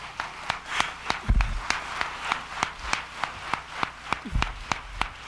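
Audience clapping together in a steady rhythm, about three claps a second, over a light crowd hubbub, with a low thud about a second in and another near the end.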